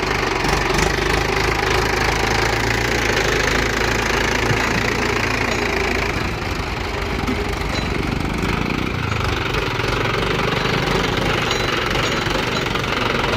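Diesel engine of heavy earthmoving machinery running steadily under work, with a fine low-pitched chugging pulse, as a JCB 3DX backhoe loader loads mud into a Mahindra tractor.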